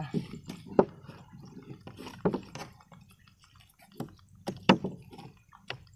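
Scattered wet knocks, slaps and small splashes of freshly netted fish in a plastic basin with a little water, a sharp knock every second or so.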